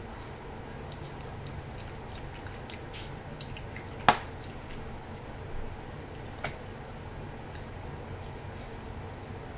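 Close-up eating sounds from a seafood boil: chewing, with a short crackle about three seconds in, a single sharp crack about a second later that is the loudest sound, and a couple of fainter clicks after it.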